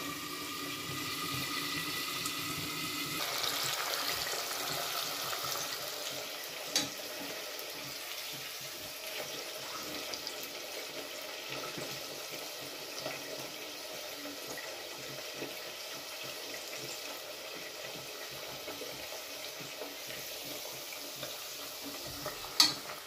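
Pork chops deep-frying in oil in a covered pot: a steady sizzle, muffled by the lid, with a sharp clack near the end.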